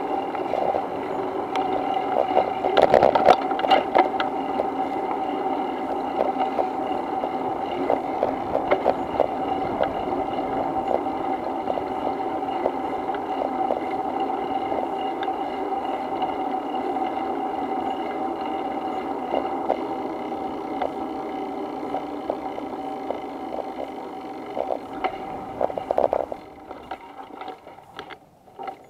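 Steady electric-motor whine with rattles and clicks from riding over pavement, dying away near the end as the ride slows to a stop.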